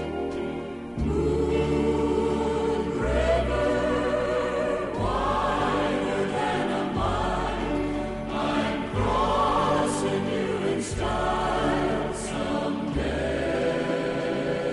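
Music with a choir singing slow, held chords over a bass line that changes about every two seconds.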